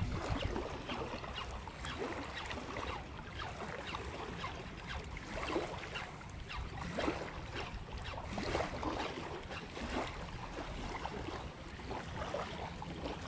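Small waves lapping and splashing irregularly against a concrete boat ramp, with a low wind rumble on the microphone.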